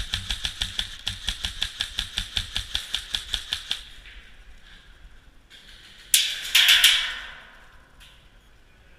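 Airsoft gun firing a long, rapid string of shots, about eight a second, that stops about four seconds in. About six seconds in, a louder rushing burst lasts about a second.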